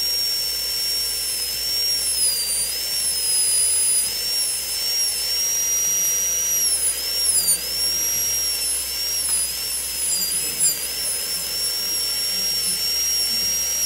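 High-speed dental handpiece running with a steady, high-pitched whine, its pitch sagging briefly a few times as the bur cuts a bevel into the tooth's enamel.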